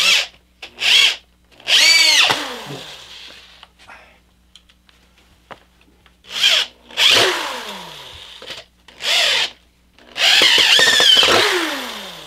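Corded electric drill driving wood screws into wooden ramp planks in about seven separate trigger pulls. The motor whines up and winds down each time with a falling pitch, and the longest run comes near the end.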